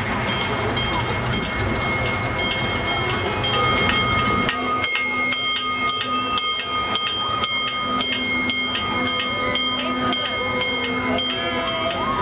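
Gasoline-powered miniature train running along its track: a low engine rumble eases off about four seconds in, after which the wheels click over rail joints about twice a second. A high steady whine runs through it all.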